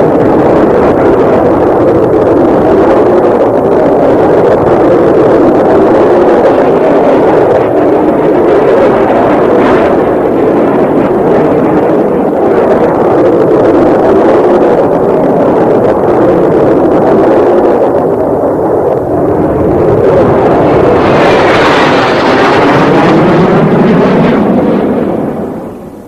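Jet aircraft noise from a Martin B-57 in flight: the steady rush of its twin turbojet engines. About 21 seconds in it grows brighter and sweeps down in pitch as the jet passes close, and it cuts off suddenly at the end.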